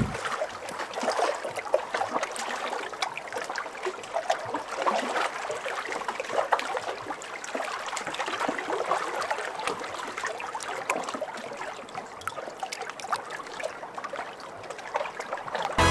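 Water lapping and trickling around a small boat, with a steady patter of small splashes.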